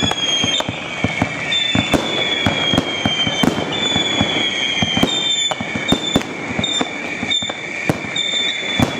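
Fireworks display: a dense, irregular run of bangs and crackles, layered with many short, high, slightly falling whistles.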